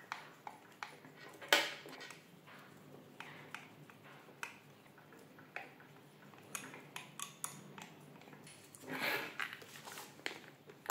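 Hex screwdriver driving small screws through an RC truck's chassis plate: scattered faint clicks and ticks of the tool and hands working, with a sharper click about a second and a half in and a short rustling scrape near the end.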